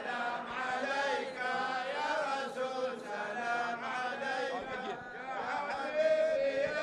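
A group of men chanting together, a devotional chant heard off-microphone at moderate level, with no single amplified voice leading.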